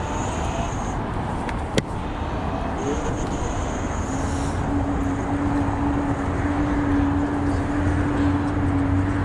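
Wind and road noise while riding an electric scooter alongside traffic. A single sharp knock comes about two seconds in, and a steady hum sets in about halfway through.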